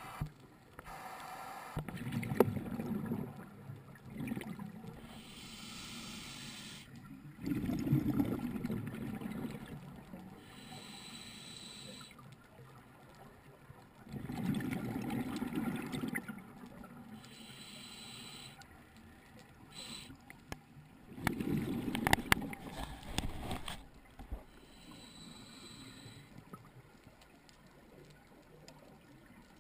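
Scuba diver breathing through a regulator underwater: a bubbling rush of exhaled air four times, about every six to seven seconds, with a softer hiss of inhaling in between.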